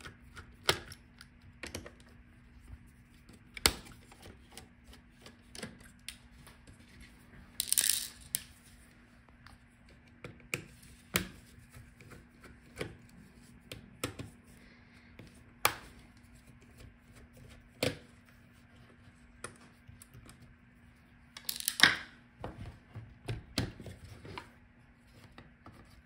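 Small screwdriver working the heatsink screws of a laptop, with scattered sharp clicks and taps of tool and hands on metal and plastic. Twice a longer scraping rustle stands out, the second the loudest sound.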